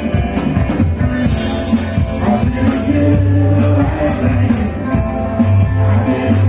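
Live rock band playing, with drum kit, guitar and long held bass notes.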